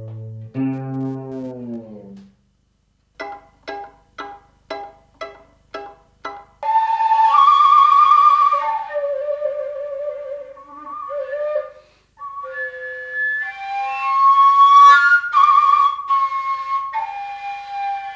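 A fretless bass guitar note rings out low and fades in the first two seconds. After a short gap comes a run of about eight short, evenly spaced notes, then an overtone flute plays a breathy melody, jumping between overblown pitches, until near the end.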